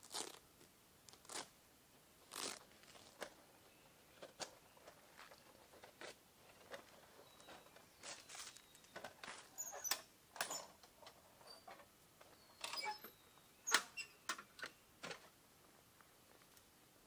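Handling noise from a steel folding fire pit being slid out of its canvas case and set up: scattered rustles of canvas and light metal clinks and taps, irregular and close, with a denser cluster in the second half.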